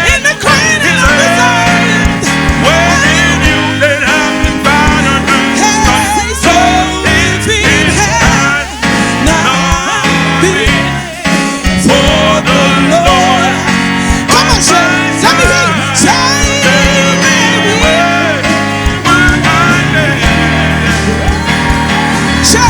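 Live gospel praise music: a band with bass and steady drums playing an upbeat song, with voices singing over it.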